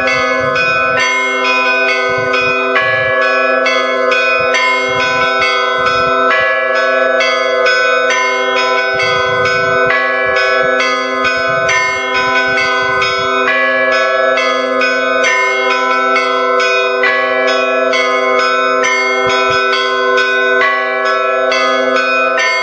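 Russian Orthodox church bell ringing (zvon): small bells struck in quick, repeating patterns over the steady hum of the larger bells, with a deeper bell stroke now and then.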